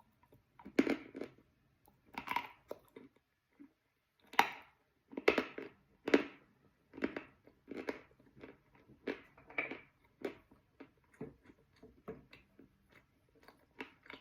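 Close-up biting and chewing of soaked chalk: a run of moist crunches, the loudest in the first half, giving way to softer, quicker chews near the end.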